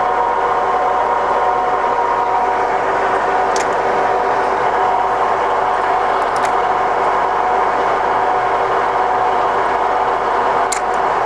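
Scott 6250B centre lathe running under power, its geared headstock and feed shaft turning with a steady whine of several tones. A few light ticks come from the drive about three and a half, six and a half, and eleven seconds in.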